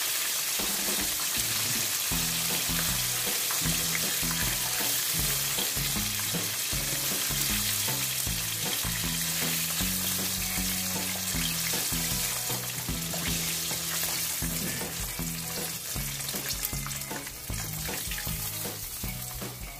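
Cornstarch-coated chicken wings deep-frying in hot oil, a steady dense sizzle that dies down somewhat near the end.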